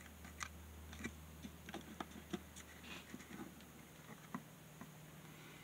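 Faint, irregular light clicks and taps of a plug-in power meter's plastic housing being handled as its opened halves are moved about, over a low steady hum.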